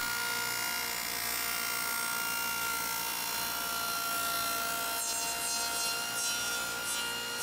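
Table saw running with a steady whine, cutting dados across a stack of plywood strips held in a crosscut sled.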